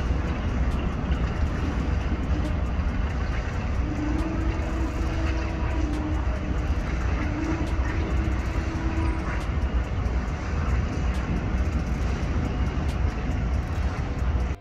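Airbus A380-800's four jet engines rumbling steadily and low as the airliner climbs away after takeoff.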